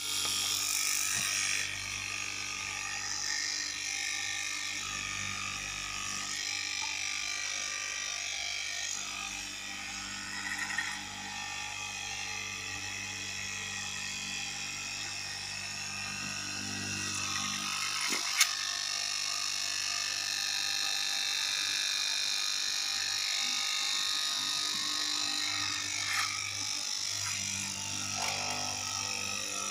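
Electric straight-knife cloth cutting machine running steadily, its vertical reciprocating blade cutting through a thick stack of fabric layers: a continuous motor buzz. A single sharp click about two-thirds of the way through.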